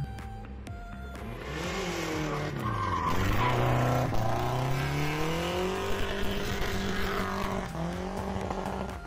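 Volvo 740 16V Turbo doing a burnout: the engine revs hard while the rear tyres spin and squeal. The revs drop briefly about three seconds in, then climb again and hold. The tyre squeal fades near the end.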